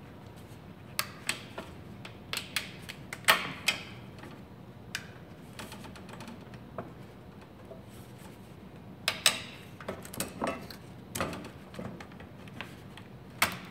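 Thin aluminum fascia sheet being worked by hand along a scored line to break off the old hem: sharp, irregular clicks and snaps in small clusters as the metal is flexed.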